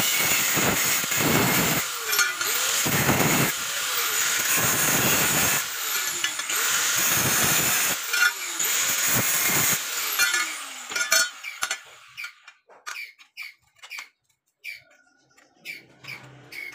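Handheld 100 mm angle grinder cutting a slot into a steel plate: a loud, high-pitched grinding of the disc in steel, dipping several times while the motor's pitch falls. The grinding stops about eleven seconds in, followed by a string of light clicks as the grinder is handled.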